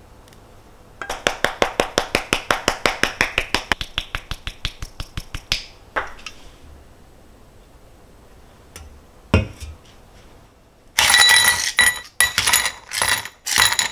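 A rapid, even run of light clicks, slowly fading, as dried parsley is worked out of a small container over the pasta. Then a single knock, and near the end several loud ringing clinks of ice cubes going into a glass tumbler.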